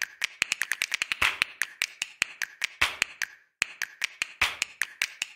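Percussive music of snaps and taps in a steady rhythm, with a stronger accent about every second and a half. It drops out briefly about three and a half seconds in, then picks up again.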